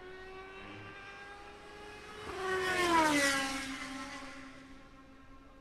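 A single Le Mans race car passing at speed. Its engine note builds, is loudest about three seconds in, drops sharply in pitch as it goes by, then fades.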